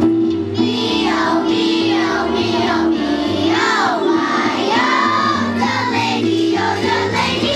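Children's choir singing a song in unison over a steady instrumental accompaniment.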